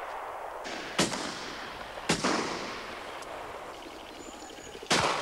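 Shotgun shots, three of them, about a second in, just after two seconds and near the end, each followed by a long rolling echo.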